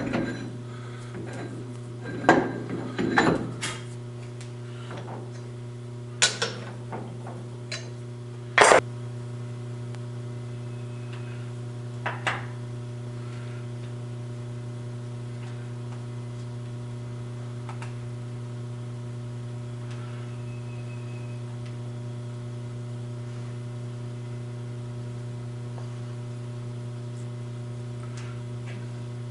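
Steel bar stock and a lathe's four-jaw chuck being handled: a handful of sharp metal clanks and knocks in the first nine seconds and one more near twelve seconds. A steady mains hum runs throughout, with only faint handling sounds afterwards.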